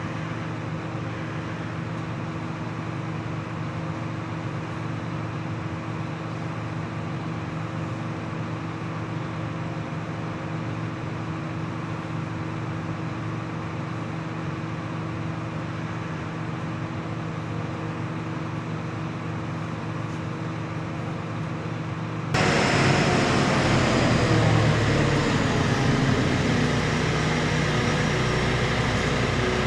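A steady mechanical hum with a low droning pitch. About two-thirds of the way through, a louder, hissier machine noise cuts in abruptly and runs on.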